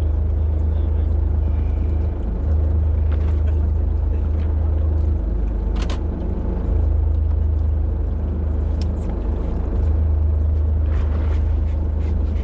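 A fishing boat's engine running steadily, heard as a continuous low rumble with a few faint clicks.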